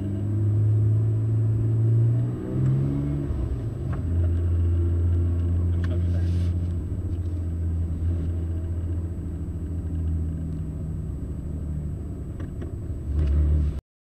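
Car engine heard from inside the cabin, running at low, fairly steady revs; its note breaks and changes pitch about two and a half seconds in, then holds steady again. The sound cuts off abruptly near the end.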